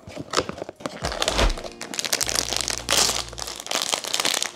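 Crinkling and crackling of a blind box's foil and plastic packaging as it is handled and opened, with many irregular rustles and small clicks.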